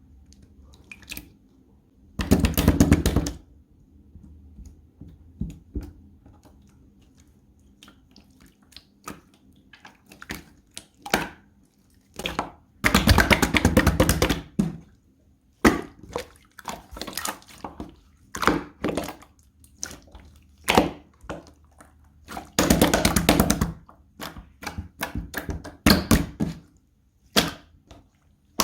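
Clear slime being squeezed and pressed by hand: three dense bursts of rapid crackling clicks, each a second or so long, with scattered single pops and clicks between.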